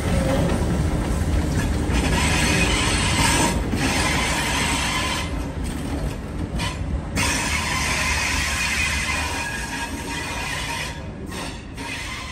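Trains rolling slowly through a station: steel wheels squealing on the rails over a steady rumble, which fades toward the end as the trains draw away. A Garratt steam locomotive and an Xplorer diesel railcar set are passing on adjacent tracks.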